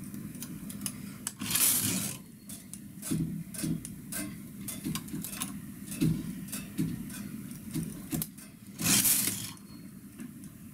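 Metal latch needles of a single-bed knitting machine clicking and clinking as stitches are lifted and moved with a hand transfer tool. Two louder brief scrapes stand out, one about a second and a half in and another near the end.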